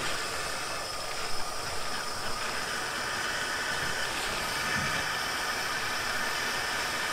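Steady hiss of steam from the 1895 narrow-gauge tank locomotive Urskog standing at the platform, growing a little stronger about three seconds in.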